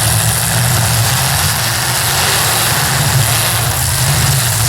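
Demolition derby cars' engines running together in a steady, loud, low drone with a hiss on top.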